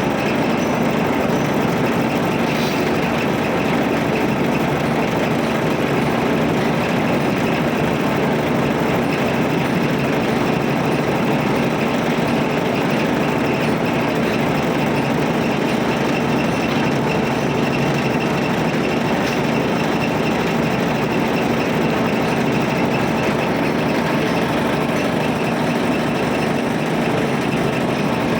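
Heavy construction-machine engine running steadily at a constant speed, a continuous loud mechanical rumble with a faint low hum and no change in pace.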